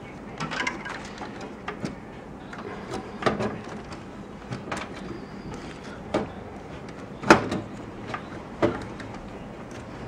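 Hard drive and power-supply cables being handled inside a steel PC case as the drive is worked into its drive bay: scattered clicks and knocks of metal and plastic, the loudest a sharp knock about seven seconds in.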